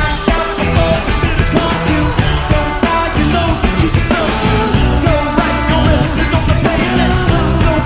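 Loud rock music with a sung vocal over drums and guitars.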